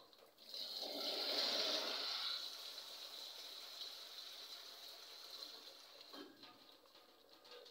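Water gushing for about two seconds, then a steadier, fainter hiss that slowly fades.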